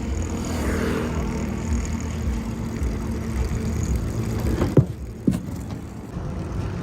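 Tractor diesel engine idling steadily, with a couple of brief falling squeaks about five seconds in.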